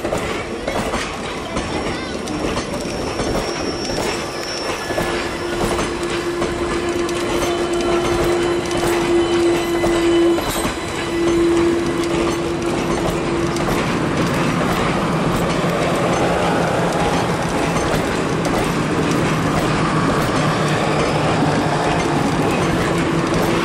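Indian Railways passenger coaches rolling past close by, their wheels clattering over rail joints and points. A steady tone is held for several seconds in the middle, and a lower steady tone builds near the end.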